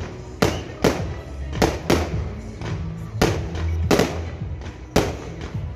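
Aerial fireworks shells bursting: about ten sharp bangs at uneven intervals, each trailing off briefly, with music and its steady bass underneath.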